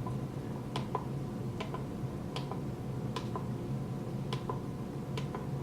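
Sharp little clicks, about ten at uneven intervals, from the controls of a microscope's LED ring light being worked to step through its modes and dimness. A steady low hum runs underneath.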